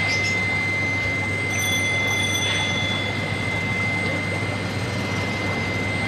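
Steady hum and hiss with a constant low hum and a thin, steady high-pitched whine.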